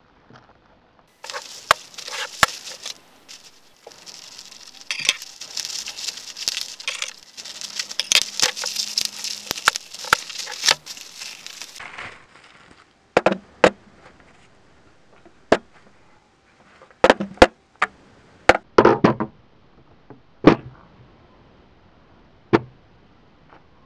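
A plastic bag crinkling and rustling as it is handled and opened, for about ten seconds. Then come separate sharp knocks and clicks, some in quick clusters, as a small metal stand is set down and handled on a hard desk top.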